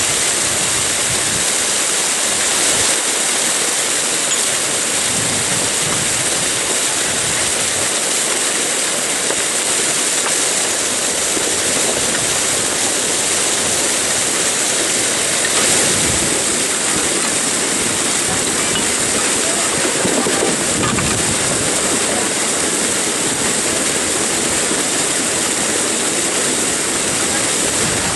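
Muddy water pouring steadily through a breach in a small earth-and-brick dam and cascading down a gravel bank.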